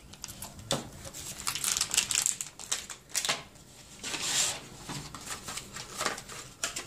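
Packaging being handled: a small plastic bag of soldering-iron tips crinkling and a cardboard box and insert being moved about, an irregular run of rustles and light clicks and knocks, loudest about two seconds in and again past four seconds.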